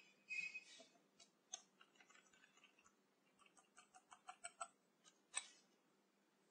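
Faint typing on a computer keyboard: scattered keystrokes, a quick run of them about three and a half seconds in, and one sharper keystroke about five seconds in.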